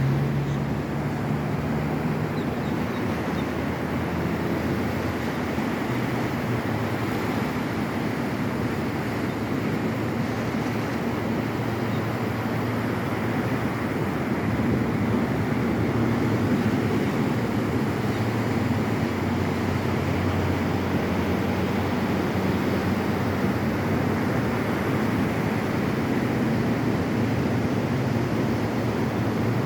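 Steady rushing noise of ocean surf and wind, with a low steady hum underneath.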